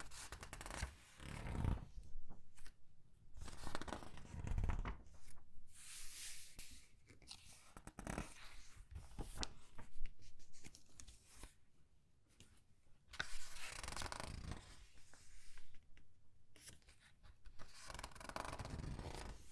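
Pages of a thin comic book being turned one after another, each turn a rustling swish and crinkle of the paper as it is squeezed, with a few crisp snaps between them.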